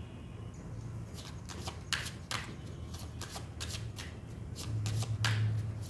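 A deck of oracle cards being shuffled by hand: a run of quick, irregular card snaps and flicks starting about a second in.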